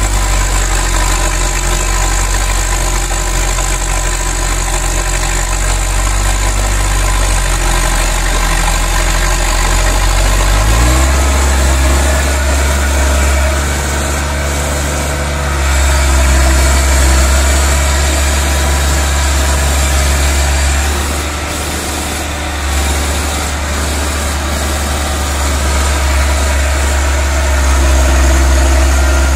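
Farm tractor engine running hard as the tractor churns through deep paddy mud. The revs rise about eleven seconds in and hold higher, with the loudness swelling and easing as it labours.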